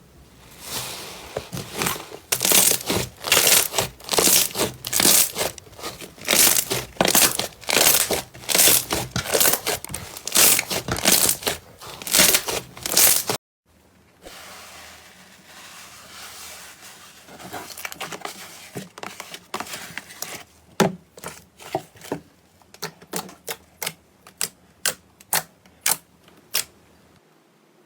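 Slime being squeezed and pressed in the hands, giving off dense crackling and popping. After a sudden cut, a quieter stretch of slime play follows, with separate sharp pops a couple of times a second near the end.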